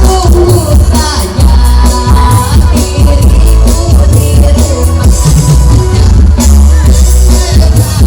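Live band music, loud, with heavy bass, drum kit and keyboard, and a voice singing at times.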